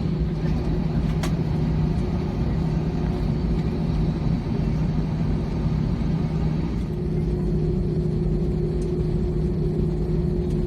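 Steady low drone inside the cabin of an Airbus A321-200, the noise of the running CFM56 engines and air system, with a constant hum and a faint click about a second in.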